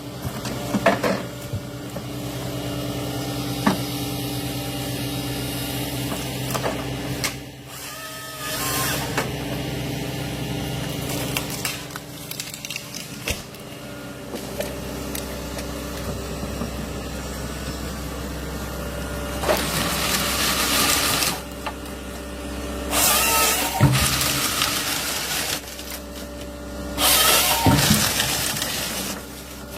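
Heavy machinery running steadily with a constant engine hum, broken by three short, loud rushing bursts in the last third.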